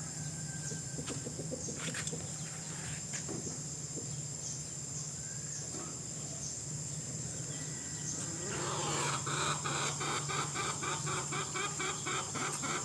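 Chickens clucking; about eight seconds in, a fast, evenly repeated run of calls starts up and grows louder. A steady high-pitched drone runs underneath.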